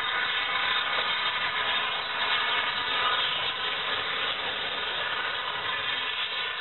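Rebuilt Bulleid West Country class steam locomotive 34028 'Eddystone' moving slowly away at low speed with a steady hiss of steam and no distinct exhaust beats. It grows a little fainter over the last couple of seconds.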